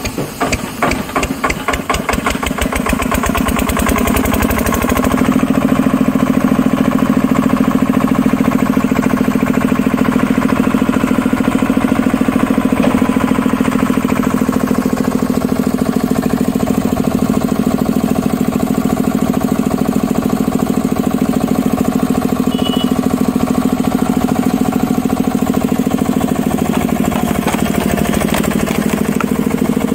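The engine of a trailer-mounted hydraulic log splitter being started: slow, separate chugs for the first few seconds that quicken, then it catches about five seconds in and runs steadily and loudly.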